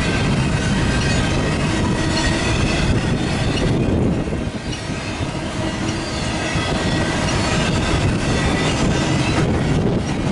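BNSF double-stack intermodal freight cars rolling past: a steady rumble and clatter of steel wheels on rail, with thin high squealing tones from the wheels over it. The sound dips briefly about four seconds in.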